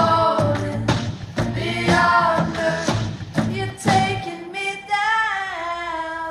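A song with a singing voice over a low, steady beat; about four seconds in the beat drops out and the voice holds long notes that slide downward.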